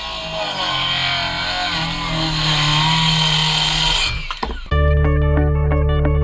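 Makita cordless circular saw cutting through a wooden board, its whine wavering under load for about four seconds before it stops. Shortly after, guitar music starts with a steady beat.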